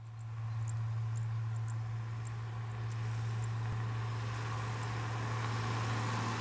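A car driving at a steady speed: a steady low engine hum with tyre hiss, rising in over the first half second, with a few faint high chirps now and then.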